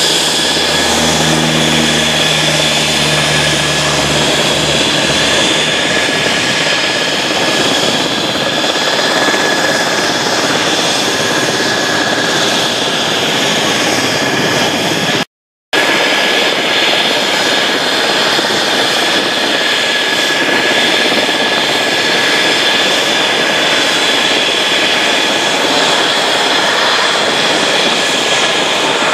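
A YS-11 twin turboprop (Rolls-Royce Dart engines) taking off and climbing away, its low propeller drone fading over the first few seconds. After a sudden break about halfway through, a Kawasaki C-1 transport's twin turbofans run loud with a steady high whine on the runway.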